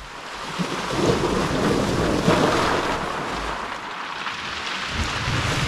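Sea waves washing into a rocky inlet, with wind on the microphone: the surge swells about a second in, eases off, and builds again near the end.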